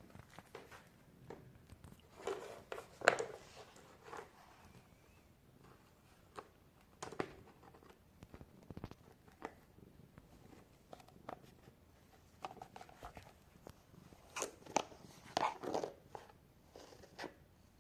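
A pet crunching dry kibble: irregular crunches with short pauses, louder bursts of chewing about two to three seconds in and again around fifteen seconds in.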